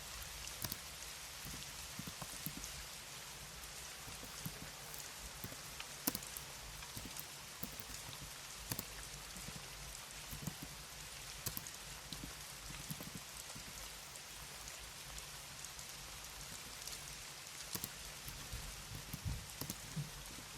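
Computer keyboard typing, irregular soft key clicks, over a steady rain ambience.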